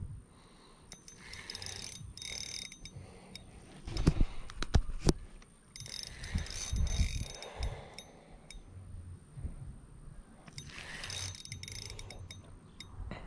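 Fishing reel being cranked in three spells, its gears whirring, as a fish is played slowly on light line. A few sharp knocks come about four seconds in.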